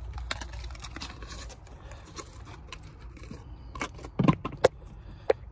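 Detailing supplies handled in a plastic storage bin: small clicks, rattles and scrapes of bottles and tools against the plastic, with three sharper knocks in the last couple of seconds.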